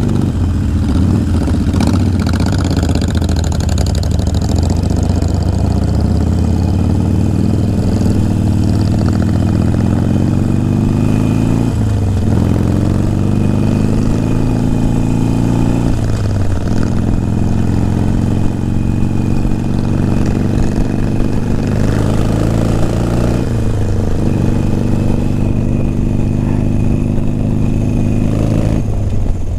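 Motorcycle engine running steadily while riding, its note dipping briefly and picking back up a few times.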